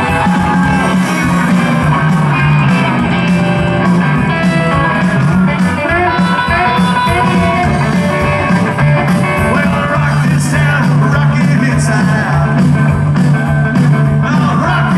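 Live rockabilly band playing: twangy hollow-body electric guitar over a slapped upright bass walking line and a steady drum beat, with a sung lead vocal.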